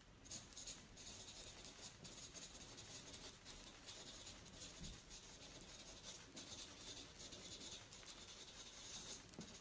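Faint marker writing on flipchart paper: a run of short scratching strokes that starts just after the beginning and stops shortly before the end.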